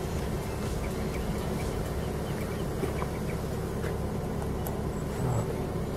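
A car's engine running as the car pulls in, over a steady low rumble of outdoor noise.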